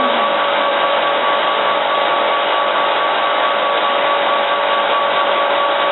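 Machine grinding a quartz glass rod: a steady grinding hiss with a constant motor whine underneath.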